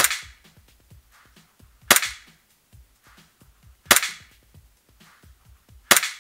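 EMG SAI BLU gas blowback airsoft pistol running on CO2, firing single shots into a chronograph: four sharp shots about two seconds apart, each with a short ringing tail.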